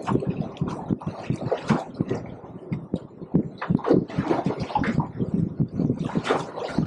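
Choppy sea water slapping and gurgling against a small boat's hull in an irregular run of splashes and knocks, with wind buffeting the microphone.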